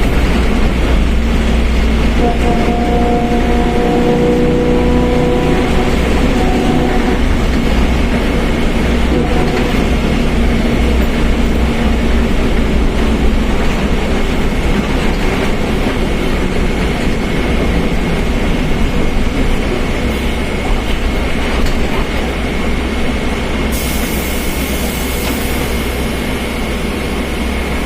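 Mercedes-Benz OF1721 BlueTec 5 bus under way, its drivetrain giving a steady loud drone with a thin high whine over it, the loud growl of a noisy differential. A held multi-note tone sounds for a few seconds near the start, and the drone eases slightly near the end.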